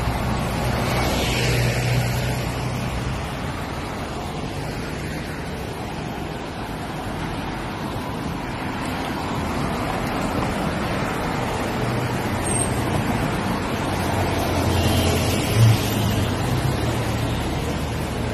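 Steady noise of road traffic passing, with engine hum swelling as vehicles go by, once a couple of seconds in and again from about twelve to seventeen seconds.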